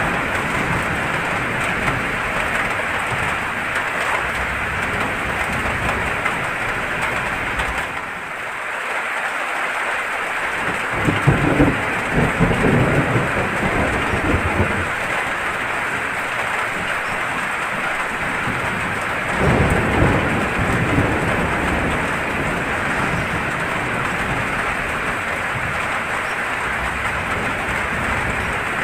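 Steady heavy rain, with rolling thunder rumbling up twice: first a long roll about a third of the way in, then a shorter one a little past the middle.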